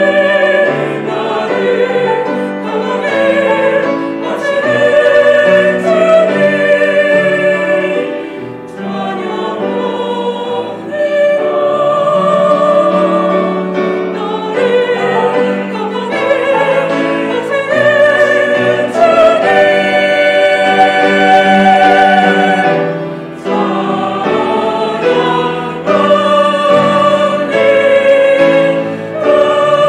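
Small mixed church choir singing a hymn in Korean with piano accompaniment, in long phrases with brief breaks about 8 and 23 seconds in.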